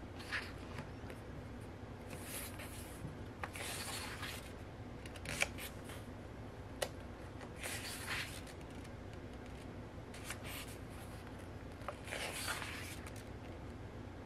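Pages of a photobook being turned one after another, a short papery swish about every two seconds, with a few light clicks and taps.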